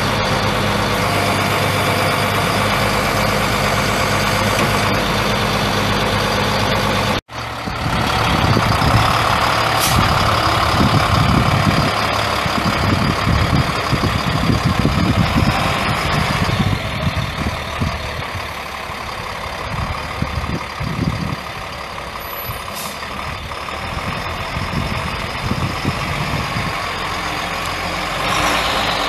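Caterpillar 3126 inline-six turbo diesel truck engine running at a steady idle. About seven seconds in, the sound cuts out for an instant and comes back as a rougher, uneven rumble, louder at first and easing off later.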